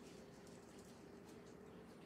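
Near silence, with a few faint light ticks as seasoning is shaken from a shaker bottle.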